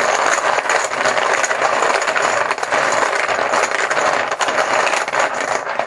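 Chips shaken and stirred in a bucket, a continuous dense clatter of many small clicks that thins to a few separate clicks at the very end.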